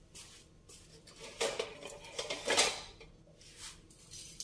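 Metal kitchen utensils being handled: several short clinks and scrapes, the loudest about two and a half seconds in.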